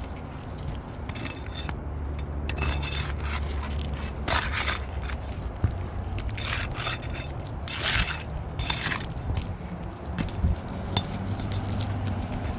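A series of short scrapes and clinks, several separate ones, over a low steady rumble.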